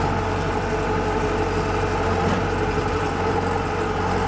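Diesel engine running at a steady speed, a constant even drone with no change in pitch.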